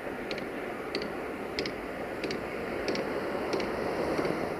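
Electroputere 060-DA (LDE2100) diesel-electric locomotive with its Sulzer engine running as it slowly hauls a freight train in, a steady rumble growing slightly louder. A short high chirp repeats about every two-thirds of a second.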